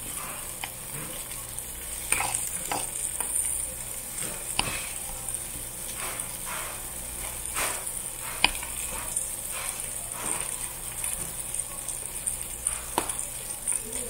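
Pork belly sizzling on a charcoal-fired grill plate, a steady crackling hiss of rendering fat. A few sharp clicks and pops stand out, the loudest about halfway through.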